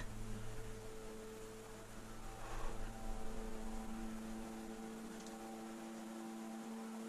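Low, steady electrical hum made of a few held pitches, with a soft brief rustle about two and a half seconds in.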